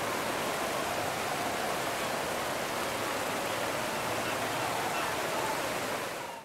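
Steady, even rush of churning sea water, cutting off abruptly at the very end.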